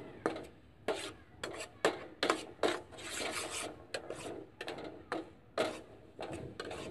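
Spatula scraping through mustard oil cake being roasted with coconut oil in a wok, stirred without pause so it does not burn: quick, irregular rasping scrapes against the pan, two or three a second, with one longer scrape about three seconds in.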